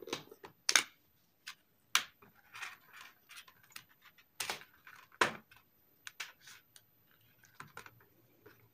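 Scattered light clicks and small rattles of handling test gear: a DT9205A multimeter's rotary selector being clicked round to the current range, then test leads and alligator clips being shifted about.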